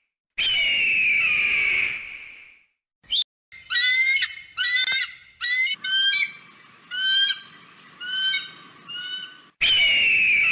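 Eagle call sound effects: a long, harsh, falling scream, then a run of about a dozen short, high, piping calls that spread out toward the end. The long scream comes again near the end. The segments start and stop abruptly, as spliced clips.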